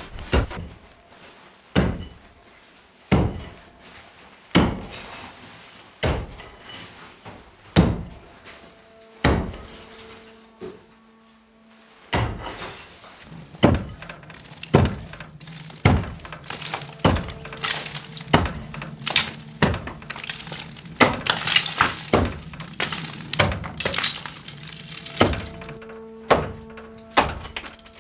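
Floor being smashed up with heavy blows, each strike followed by brittle material cracking and rubble clattering down. The blows come about every second and a half at first, then faster and busier in the second half.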